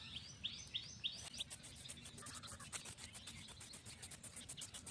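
A bird calling with repeated short, high chirps, then, about a second in, a fast, even rasping ticking of several strokes a second takes over. All of it faint.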